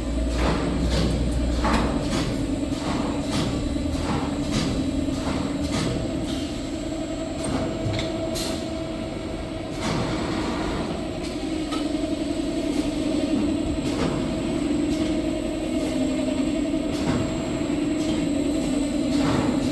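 Automatic maxi-roll kitchen towel paper log saw cutting machine running: a steady mechanical hum with repeated sharp clacks, about two a second at first, then further apart.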